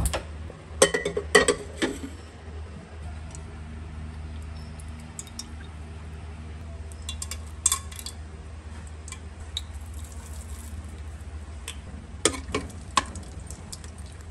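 Stovetop cooking: a gas burner is lit and metal cookware clacks sharply several times in the first two seconds, then a steady low hum runs under occasional light clinks and a faint sizzle as whole spices and cumin go into hot oil in an aluminium pressure cooker.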